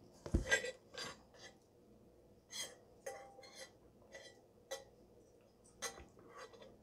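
A handful of short clinks and knocks from a stainless steel insulated drinking mug being picked up and handled, the loudest a low knock near the start, with quiet sips through its straw.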